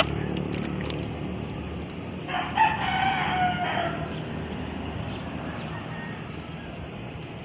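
A rooster crows once, about two seconds in, for about a second and a half.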